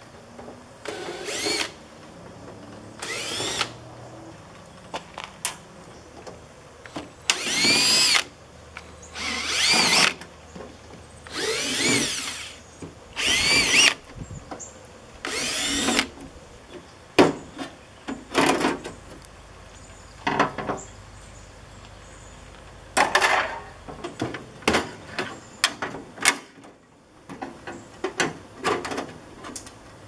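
Cordless drill backing screws out of a microwave oven's sheet-metal cabinet, in about seven short whirring runs that each rise in pitch as the motor spins up. These are followed by a string of sharp clicks and knocks as the metal casing is handled.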